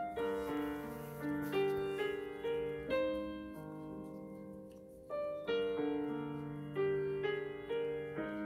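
Background piano music: a gentle melody of single struck notes over held chords, each note fading after it is struck.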